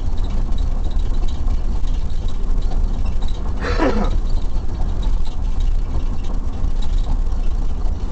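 Steady low rumble of a car's engine and road noise heard from inside the cabin. A brief voice sound cuts through about halfway.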